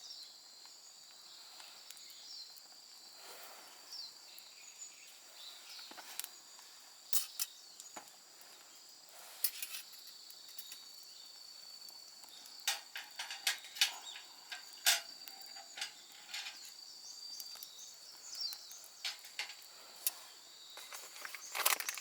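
Wood fire crackling with scattered sharp pops, more frequent in the second half, while insects trill steadily in the background.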